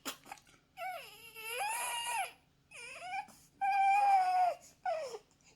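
Four-week-old newborn baby crying in about five wailing cries, each rising and falling in pitch, the longest lasting about a second and a half.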